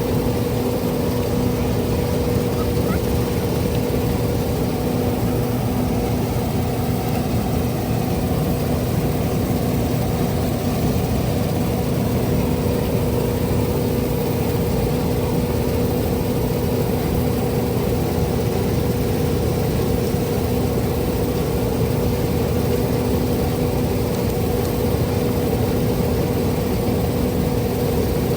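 Steady machinery noise with a constant two-note hum, unchanging throughout.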